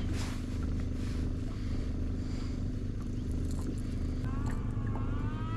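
Steady low hum of a boat motor running while the boat sits in place. About four seconds in, a wavering higher tone joins it.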